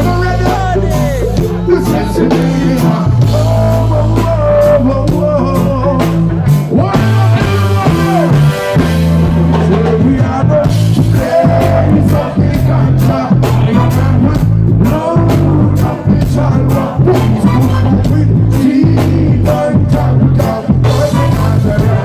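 Live reggae band playing a steady groove: deep bass line, drum kit and guitar, with singing at times.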